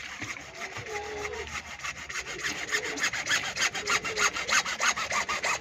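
Hacksaw cutting through a PVC borehole pipe, back-and-forth strokes that grow louder and quicker, about three to four strokes a second in the second half.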